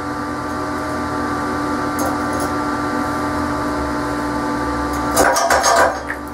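A steady machine hum with several pitched lines, with a couple of faint ticks about two seconds in and a short burst of crackling about five seconds in.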